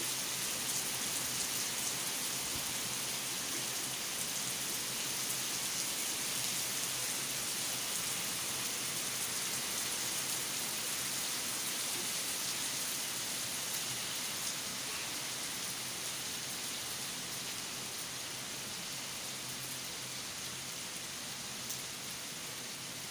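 Steady rain falling on a wet concrete rooftop, an even dense hiss with fine pattering drops, easing slightly toward the end.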